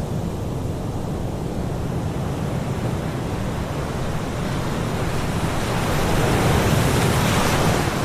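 Sea surf: a steady rush of breaking waves, swelling louder in the second half.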